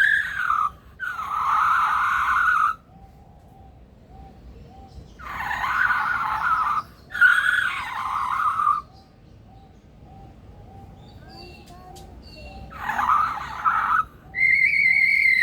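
Male superb lyrebird giving loud, harsh, rasping calls in repeated bursts of one to two seconds, six in all. The last is a steadier held note. These are the kind of mimicked noises it copies from other birds and machinery.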